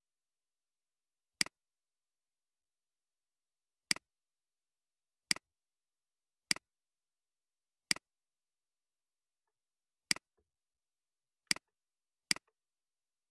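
Computer mouse clicks: eight single, sharp clicks at uneven intervals, with dead silence between them.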